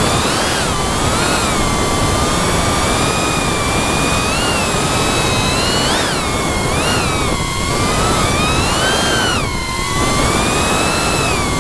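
FPV drone's brushless motors and propellers whining over a steady rush of prop noise, the pitch swooping up and down with throttle changes. Near the end the power briefly drops, then comes back up.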